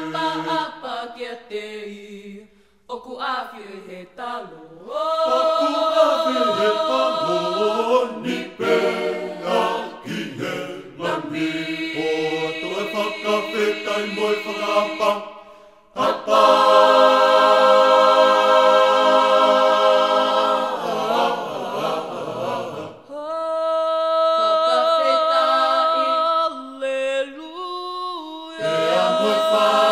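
Tongan a cappella gospel choir singing in harmony, unaccompanied voices holding long chords, with a few brief pauses between phrases.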